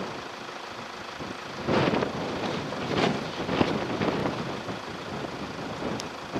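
Jeep Grand Cherokee and Nissan Patrol off-roaders crawling up a muddy track, engines working under load with tyres in the ruts. The noise swells about two seconds in and again around three to four seconds.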